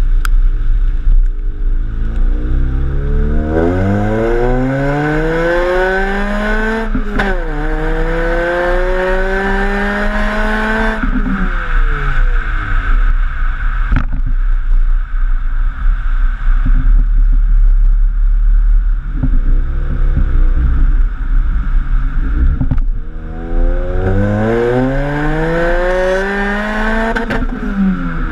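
Ford Puma's engine accelerating, revs climbing and dropping sharply at a gear change about seven seconds in, then climbing again before falling off. After a steady stretch it pulls up through the revs again and shifts near the end.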